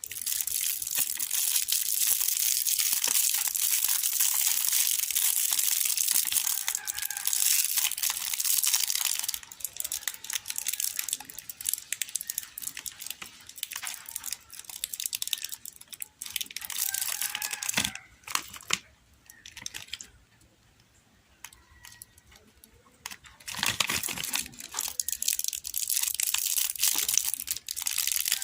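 Chocolate wrappers crinkling and tearing as the chocolates are unwrapped: a dense crackle of packaging handled for long stretches, with a quieter pause about two-thirds of the way in before the crinkling resumes.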